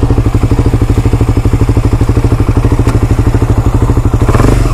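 Kawasaki Ninja 250SL's single-cylinder four-stroke engine running at low revs, with a steady, even pulse of firing strokes. The low engine note swells slightly near the end.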